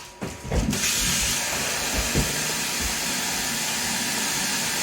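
A few light knocks, then water starts running from a tap less than a second in, with a steady hiss while more water is drawn for the brine.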